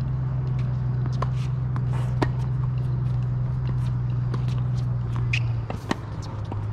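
Tennis rally on a hard court: sharp pops of the ball off the racket strings and the court, with scuffs of shoes, one strike just before the end as the near player returns. A steady low hum runs underneath, dropping slightly a little over five seconds in.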